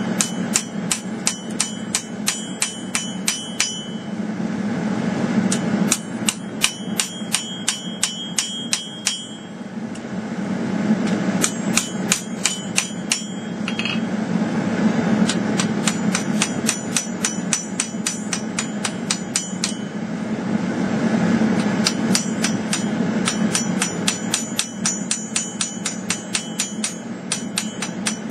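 Hand hammer striking a red-hot bowie knife blade on an anvil in quick runs of about four ringing blows a second, with short pauses between runs, as the tip, choil and edge are drawn out. A steady low roar runs underneath.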